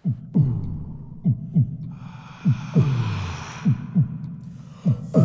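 Heartbeat sound effect: a slow, steady double thump, each beat a low boom that falls in pitch, about one pair every 1.2 seconds. A soft hiss swells and fades in the middle.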